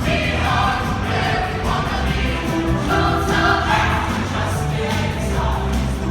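A choir singing a song, with sustained notes over a low, steadily moving bass line.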